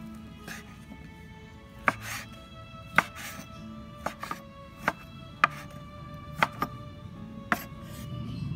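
Kitchen knife chopping pieces of liver on a wooden cutting board: about nine sharp, irregularly spaced knocks of the blade on the board, over background music.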